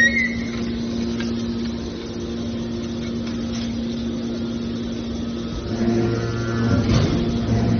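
Hydraulic scrap-metal baler running, with a steady hum from its pump. About six seconds in it grows louder, with a deeper drone and some rattling, as the ram pushes out a compressed bale of metal shavings.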